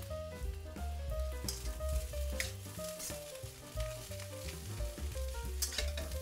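Shrimp and egg fried rice sizzling in a hot wok as it is tossed and stir-fried with a metal spatula, with a few sharp scrapes of the spatula against the wok. Light background music plays underneath.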